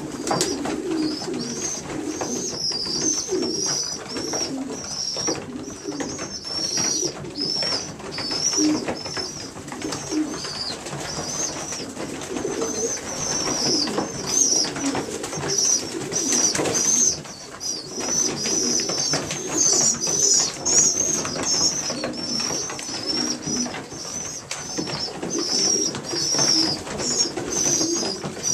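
A loft full of young racing pigeons, squeakers about four weeks old, keeping up a constant high-pitched wavering squeaking, over steady pigeon cooing and scattered clicks.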